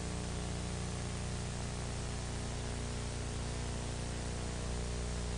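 Steady hiss with a low electrical hum underneath: the background noise of the recording, with no other sound.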